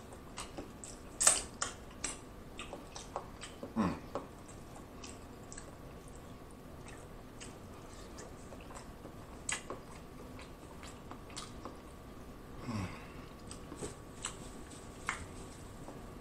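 Close-up eating sounds: wet chewing and mouth clicks while eating sauce-coated seafood-boil food, with a few louder short sounds about 1, 4 and 13 seconds in.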